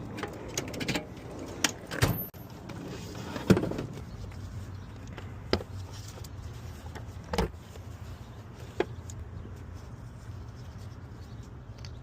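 Scattered knocks and clicks of tools and parts being handled during an oil change on a car, over a steady low hum. The loudest knock comes about three and a half seconds in.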